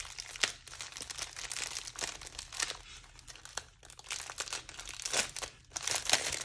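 Diamond painting kit packaging crinkling and rustling as it is handled, a steady run of irregular crackles that dips briefly and gets louder near the end.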